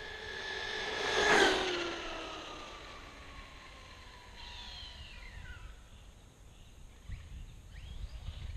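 Arrma Outcast 4S RC truck's brushless motor and drivetrain whining at full speed on a speed run, loudest as it passes close about a second and a half in, its pitch dropping as it goes away. A second falling whine about four and a half seconds in as it slows down.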